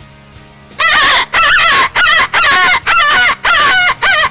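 Duel open reed coyote howler call blown as a rabbit distress call: a rapid string of loud, wavering squeals, about two a second, starting about a second in. A cupped hand fluttering over the bell makes the pitch warble.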